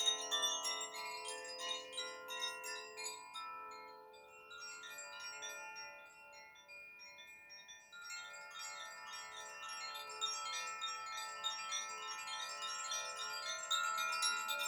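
Koshi chimes, bamboo tubes with tuned metal rods struck by an inner clapper, rung by hand in a dense cascade of overlapping bell-like tones. The ringing thins out and fades in the middle, then picks up again about eight seconds in.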